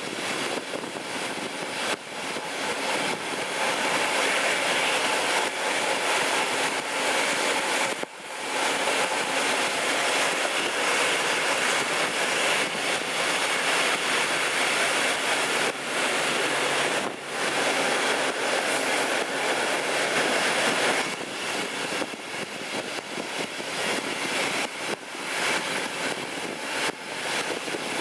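DB class 218 diesel-hydraulic locomotive working at the head of the train, heard from an open coach window together with wheel-and-rail noise and rushing air, a steady loud mixture with brief dips about 8 and 17 seconds in.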